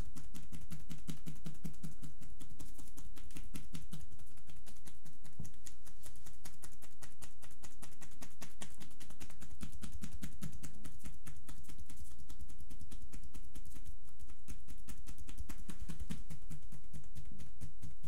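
Hacking tapotement massage: the edges of loose-fingered hands chopping over and over on bare shoulders and upper back, a fast, even stream of soft, dull thuds.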